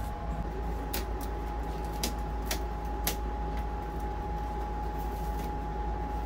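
A steady low machinery hum with a thin, steady high tone through it, and a scattering of sharp clicks and snaps, most in the first three seconds, from old foam-backed headliner and a cordless drill/driver being handled.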